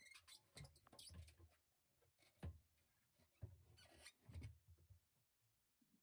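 Very faint handling noise: soft knocks and short scratchy rustles of hands pushing a calorifier tank up into its stainless strap clamps, with a brief rustle about four seconds in.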